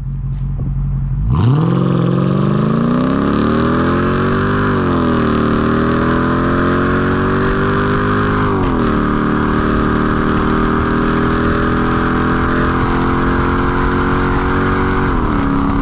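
Straight-piped V8 of a Mercedes E-class wagon pulling away. The exhaust note climbs, drops sharply twice as the transmission upshifts, about five and about nine seconds in, then holds steady at cruise.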